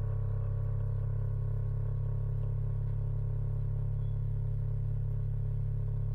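Electric cotton candy machine running: a steady low motor hum from its spinning head, with a fainter higher tone above it.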